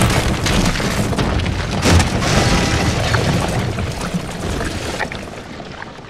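Sound-effect boom of a blast with rock chunks breaking apart, a continuous rumble and crash with a sharp hit about two seconds in, fading away near the end.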